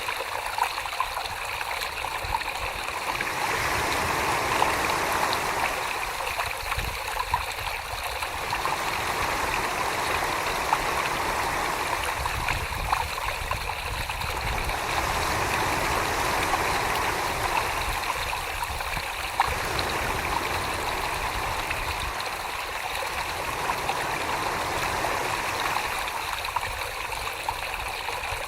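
Wet clay being worked by hand on a spinning potter's wheel: a continuous watery sloshing that swells and eases about every six seconds, with small scattered clicks.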